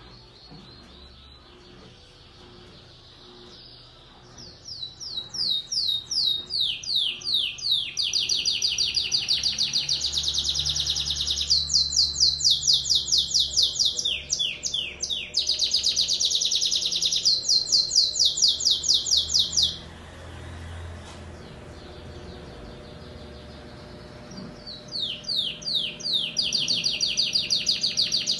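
Domestic canary singing: long songs of rapid, high, repeated downward-sweeping notes run together into rolls, starting about four seconds in. It breaks off suddenly about two-thirds of the way through, pauses, and starts singing again near the end.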